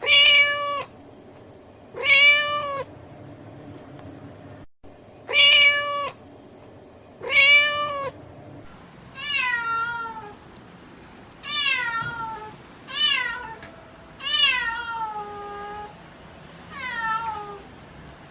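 Domestic cat meowing repeatedly. First come four short meows, each held at one pitch, about two seconds apart. Then, about halfway through, come five meows that start high and slide down in pitch.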